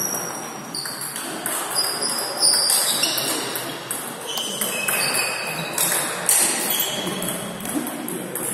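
Table tennis play: sharp clicks of the ball against bats and table, among short high-pitched ringing pings.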